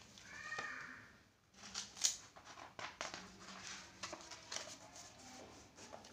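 Pages of a softcover textbook being turned and handled: paper rustling and crackling, with sharp page flicks, the loudest about two seconds in. Near the start there is a short high call that rises and falls.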